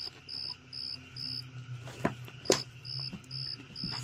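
Crickets chirping in a steady rhythm, about two or three chirps a second, with two short sharp clicks about half a second apart around two seconds in.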